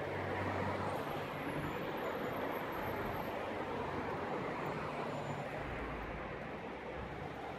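Steady city street traffic: a constant wash of car engines and tyres, with a low engine hum that swells briefly near the start and again about halfway through.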